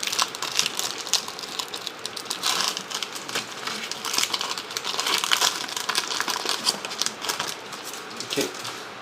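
Foil trading-card pack wrapper crinkling as it is torn open and handled, with irregular crackles and clicks.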